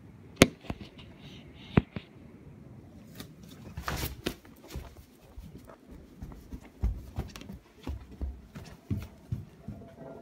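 Two sharp clicks in the first two seconds, then irregular knocks and rustling: handling noise as the phone is carried through a small room.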